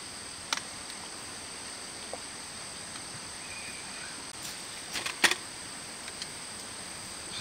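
Steady high-pitched insect chorus, with a few sharp clicks and knocks as a child's water bottle is handled, drunk from and set down; the loudest knock comes about five seconds in.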